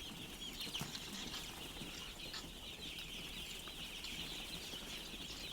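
A large flock of farm chickens calling at once: a dense, steady chatter of many overlapping high chirps and clucks.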